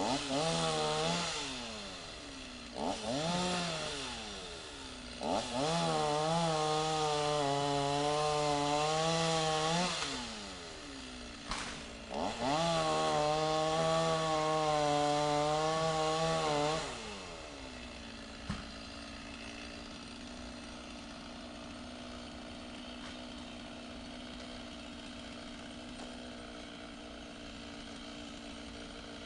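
Chainsaw cutting into the trunk of a dead poplar in several revved bursts: a couple of short ones, then two long cuts of about five seconds each with the engine pitch wavering under load. In the second half it drops back to a steady idle.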